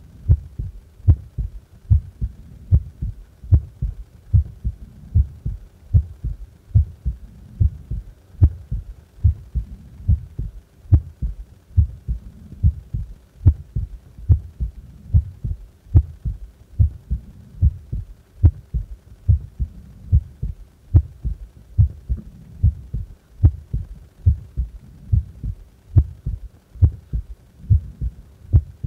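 Human heart beating at rest: a steady, even rhythm of low thumps, a little more than one a second.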